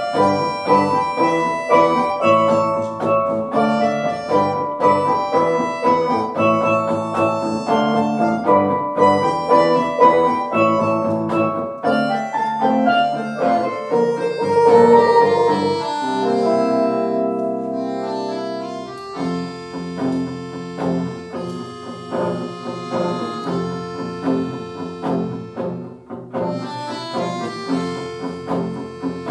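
Instrumental music without singing: a quick run of struck notes, then a few seconds of held chords a little past the middle, then a steady pulse of notes again.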